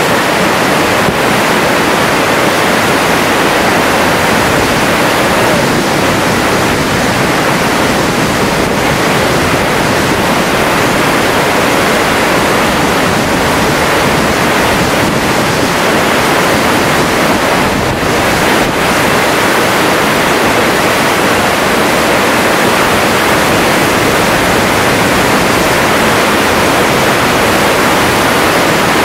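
Flash-flood water, thick with mud and woody debris, rushing steadily; an even, loud rush that never lets up.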